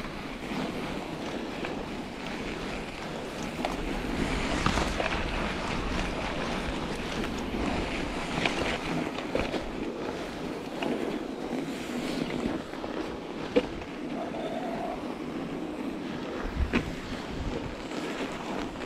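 Mountain bike on studded Schwalbe Ice Spike tires rolling along a packed snow trail, with steady wind noise on the microphone. A couple of sharp knocks from the bike come in the second half.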